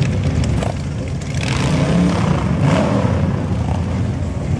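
Large touring motorcycles riding slowly past in a line, a steady low engine rumble that swells as one passes close about two seconds in.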